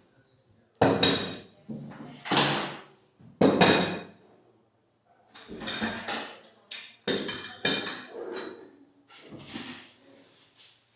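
A series of sharp knocks, each ringing briefly: three loud ones in the first four seconds, then after a pause a run of quicker, lighter ones.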